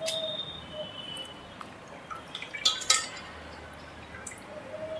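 Marinated chicken pieces being lifted by hand out of a wet marinade, with liquid dripping and squelching, and a few sharp clinks of a dish about two and a half to three seconds in.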